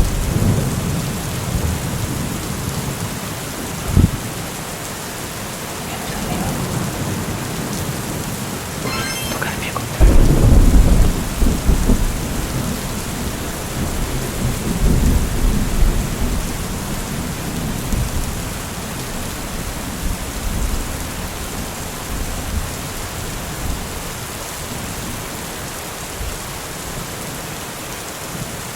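Steady rain with thunder rumbling. There is a short, sharp thunderclap about four seconds in, and the loudest rolling thunder comes about ten seconds in and rumbles on for several seconds.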